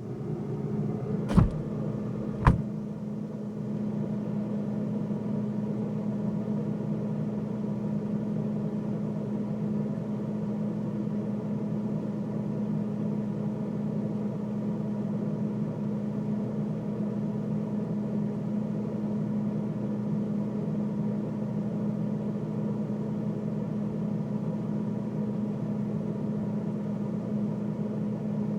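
Freezer running, heard from inside it: a steady low hum with a clear pitched tone. Two sharp knocks about a second apart near the start.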